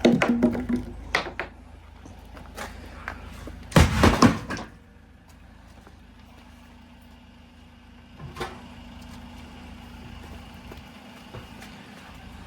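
Knocks and clattering of scrap being handled and loaded at a vehicle. A louder cluster of bangs comes about four seconds in, with a single knock later, over a low steady hum.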